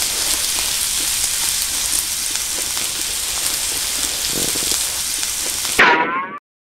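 Beef sizzling steadily in a carbon-steel frying pan, an even hiss. Just before the end a short high squeal, then the sound cuts off.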